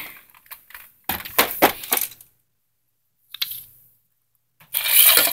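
Desk clutter clattering as it is cleared off a desk: a quick run of knocks and clicks about a second in, a faint knock later, and a louder rattling crash near the end.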